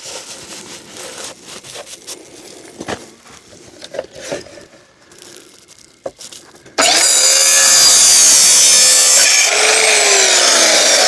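Cut-off saw cutting through a painted metal towel-rail rod. After a few light knocks of the rod being handled and lined up, the saw starts suddenly about two-thirds of the way in and runs loud and steady through the cut. Near the end a falling whine runs through it.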